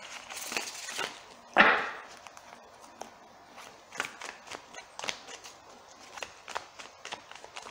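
A tarot deck being shuffled by hand. The cards rustle as they slide, give one louder swish about a second and a half in, then make a run of quick light clicks and taps as they are pushed from hand to hand.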